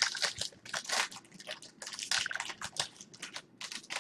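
Plastic trading card pack wrapping crinkling and rustling as it is handled, a quick irregular run of crackles.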